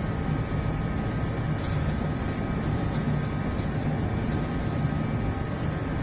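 Steady low hum of a bulk carrier's engine and machinery under way, mixed with a continuous rush of wind and sea noise.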